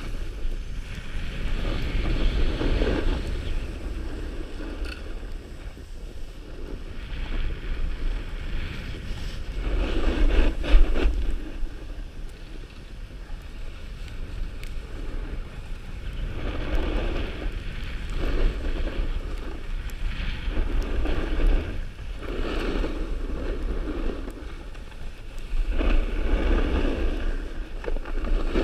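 Skis scraping and hissing over packed snow in a series of turns, each turn a swell of scraping. Wind rumbles steadily on the camera's microphone underneath.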